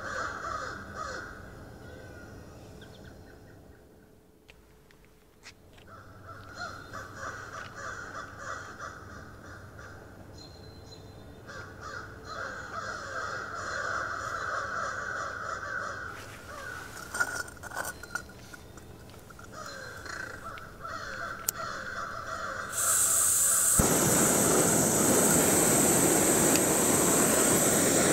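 Crows calling again and again. Near the end a small gas canister camping stove starts up and burns with a loud, steady hiss.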